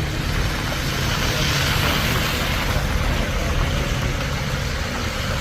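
A steady low engine hum, like an idling motor, under an even hiss that swells for a moment about two seconds in.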